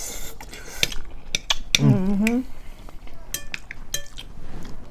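Cutlery clinking and scraping against a plate during eating, a string of sharp separate clicks. About two seconds in, a person gives a short wavering hum.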